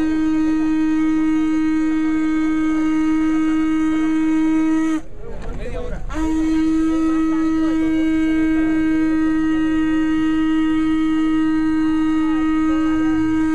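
A horn blown in one long, steady note, broken off about five seconds in and then blown again, held until near the end. Crowd voices are faintly audible underneath.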